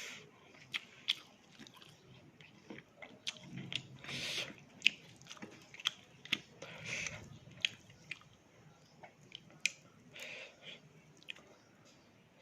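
A person chewing and biting fried fish with rice close to the microphone: many sharp, irregular mouth clicks and crunches, with a few longer noisy bursts about four, seven and ten seconds in.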